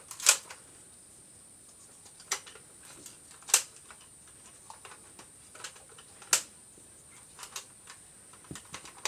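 Scattered sharp clicks and knocks: four louder ones a second or more apart, with fainter taps between them.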